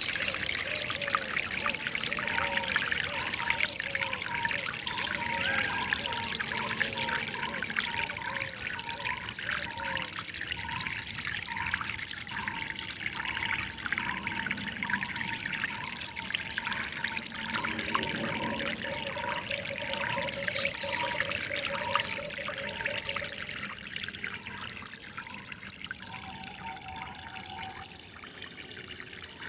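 Water trickling and splashing in a steady flow. Over it, birds call in short repeated notes, about two a second: a lower series fades out about ten seconds in, while a higher one runs on and thins out near the end.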